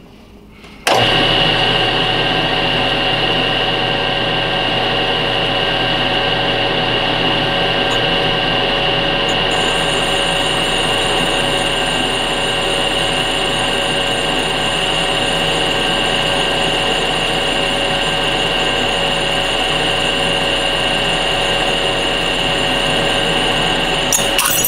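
Metal lathe motor switched on about a second in and running at a steady speed with a steady whine, spinning a glass vacuum tube held in its chuck.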